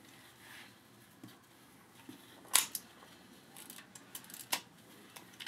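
Small sharp clicks and taps of a take-up spool and film being seated into the open back of an Exakta EXA 1a film camera, a handful of them, the strongest about two and a half seconds in.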